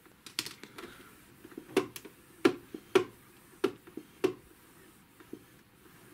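Irregular sharp clicks, about one or two a second, from the bench air pressure generator being worked to lower the pressure in the altitude digitizer.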